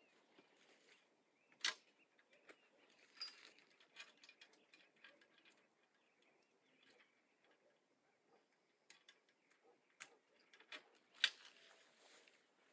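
Near silence broken by scattered small clicks and taps, with a sharp one about a second and a half in and another near the end.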